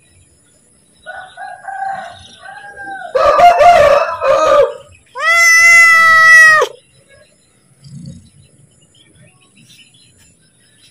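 A domestic cat meowing to be fed: soft short calls, then one long, even meow about five seconds in. About three seconds in, a rooster crows with a rough, broken call.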